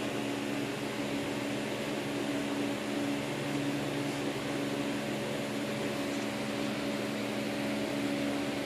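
Steady machine hum: a constant low drone over an even hiss.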